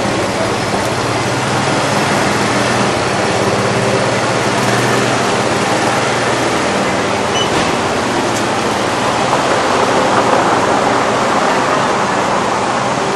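Steady street traffic noise from cars on the road, with the low hum of an idling engine during the first few seconds.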